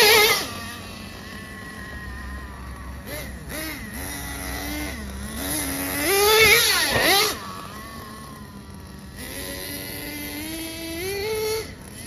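Small glow-fuel engine of an XTM X-Cellerator nitro RC truck, running on methanol and castor oil with no nitro, revving up and down as the truck is driven. It climbs to its highest, loudest rev about six seconds in, then drops back, and rises again in steps near the end.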